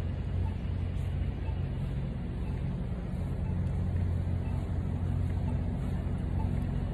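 Steady low hum of road traffic, a vehicle engine droning with no clear rise or fall.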